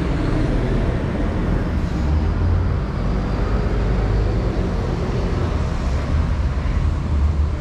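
City street noise: a steady wash of traffic with an uneven low rumble.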